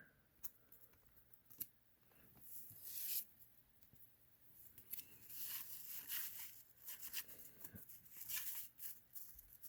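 Faint rustling and sliding of cardboard trading cards being handled and shuffled through, with a few soft clicks in the first couple of seconds.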